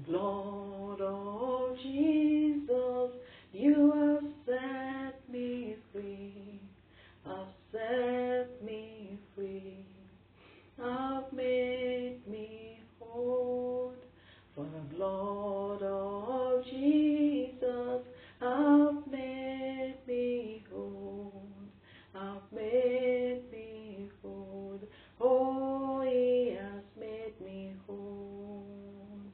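A woman singing a worship song solo and unaccompanied, in held, sustained phrases with short breaths between them.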